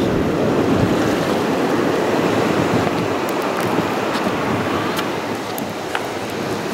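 Wind blowing on the microphone over the steady wash of ocean surf, with a few faint clicks.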